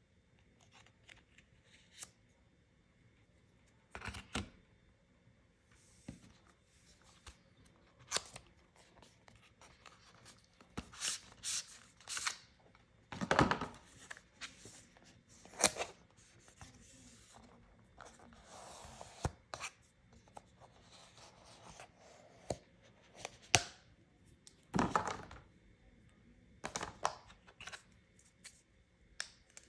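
Cardboard and paper packaging of an Apple Watch box being handled and torn open: scattered sharp clicks and taps, rustling, and a few louder rips or scrapes spread through.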